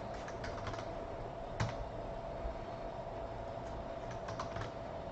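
Scattered keystrokes on a computer keyboard: a quick run of taps near the start, a single louder tap about a second and a half in, and a few more near the end, over a faint steady hum.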